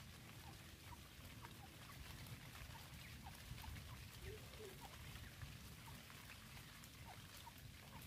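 Faint soft calls of a francolin hen and her chicks: short, slightly falling notes repeating about every half second, with a lower double note about four seconds in, over a low background rumble.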